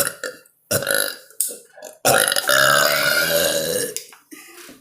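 A child burping in a burping contest: a short burp about a second in, then one long, loud drawn-out burp lasting about two seconds.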